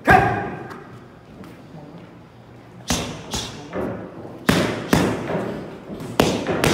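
Boxing gloves smacking Rival pro-version focus mitts: one sharp hit at the start, then after a pause a run of about eight quick hits in combinations, each smack trailing off with echo.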